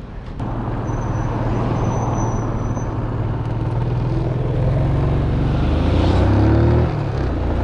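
Motorcycle engine pulling away: the engine note comes up about half a second in, rises in pitch as it accelerates, drops briefly near the end at a gear change, then runs on, with road noise.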